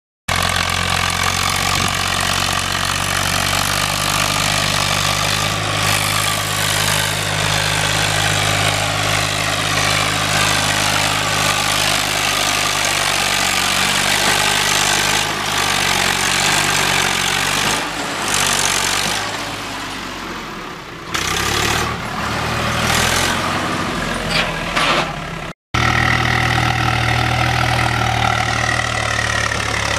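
Swaraj tractors' diesel engines working hard under load as they haul loaded trolleys up a muddy slope, a steady heavy engine note. The note eases and turns uneven about two-thirds of the way through. Near the end it cuts abruptly to a second tractor's engine running steadily.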